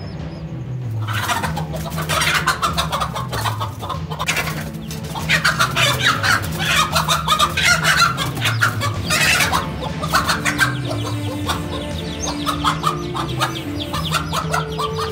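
A hen squawking and clucking in repeated loud bursts from about a second in: the defensive alarm of a hen confronting a king cobra. Background music with a low repeating drum or bass line plays underneath.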